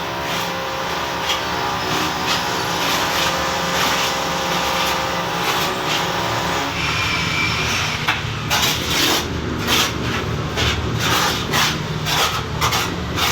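A steady sound of several held tones for the first half. From about eight seconds in, rhythmic rasping scrapes of a hand tool, about two strokes a second, typical of work on a tiled wall.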